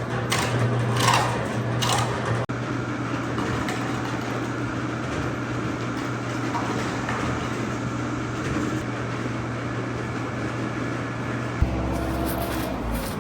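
A machine running with a steady low hum, with a few sharp scrapes or knocks in the first couple of seconds and a change in its sound near the end.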